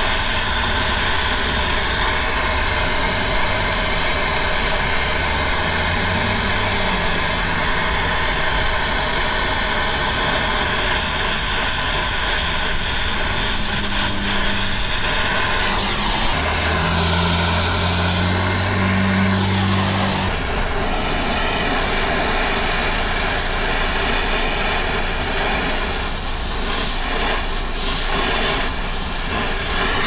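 Oxy-acetylene brazing torch flame hissing steadily while heating a copper refrigerant line joint on a replacement AC compressor.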